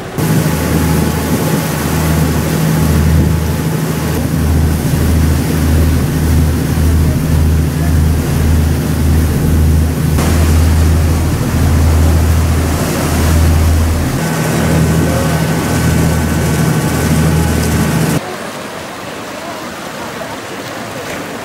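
Boat engine running with water rushing past the hull, under a heavy, uneven low rumble. Near the end it cuts off abruptly to a quieter, even hiss.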